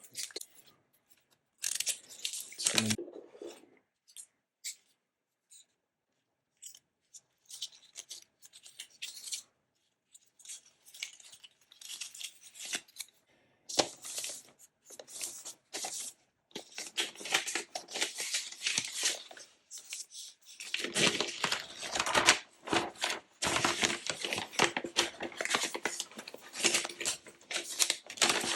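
Packaging being torn open and handled during an unboxing: tearing and rustling with small clicks, in separate short bursts at first and becoming nearly continuous in the second half.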